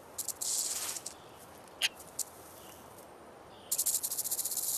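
A rattlesnake's rattle giving short dry rasps and a brief hissing buzz in the first second, then a couple of sharp clicks. About three-quarters in, a fast, continuous, high-pitched pulsing buzz starts and is the loudest sound.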